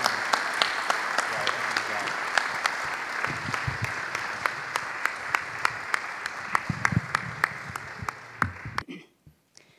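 Congregation applauding, many hands clapping steadily, then thinning out and stopping near the end.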